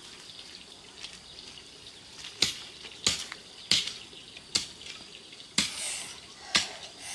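Water splashing in a series of sharp splashes about once a second, with a brief rush of running water near the end.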